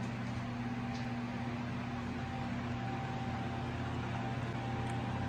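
A steady low machine hum, room background noise, with no speech.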